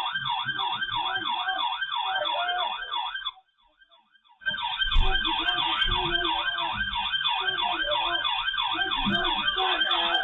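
Emergency-vehicle siren sounding in a fast yelp, wailing up and down about three times a second. It cuts out for about a second a little past the three-second mark, then resumes.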